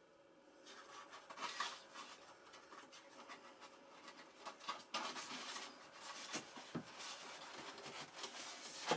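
Foam model-jet wing being handled and fitted against the foam fuselage: irregular rubbing and scraping, with a few light knocks and a sharper knock at the very end.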